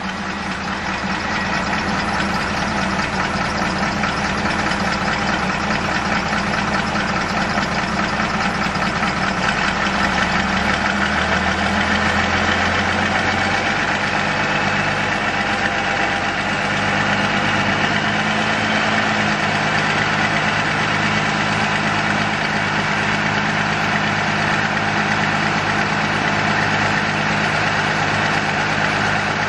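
Caterpillar 3116 six-cylinder diesel engine of a 1994 Chevrolet Kodiak rollback truck idling steadily.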